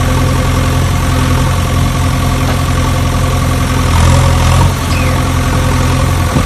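Engine idling steadily: a low, even hum that gets a little louder about four seconds in.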